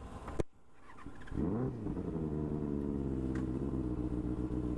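Benelli 600i motorcycle's inline-four engine starting a little over a second in, with a short rise in revs, then settling into a steady idle.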